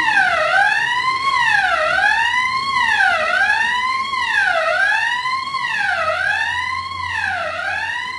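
Fire alarm siren sounding on test: one tone sweeping up and down, about once every one and a half seconds.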